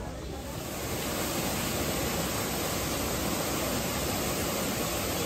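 Steady rushing noise of falling water, which sets in about half a second in and holds even.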